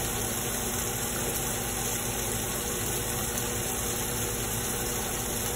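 Steak sizzling steadily in an oiled frying pan on a gas stove, over a low, steady hum.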